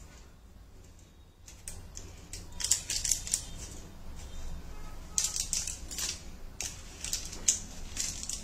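Kitchen knife pressed and drawn across a thin, setting sheet of sesame-jaggery brittle on baking paper: crisp scraping and crackling of the sesame seeds under the blade, in several short runs starting about two and a half seconds in. The blade is scoring lines into the brittle while it is still warm, so that it will break cleanly along them once it hardens.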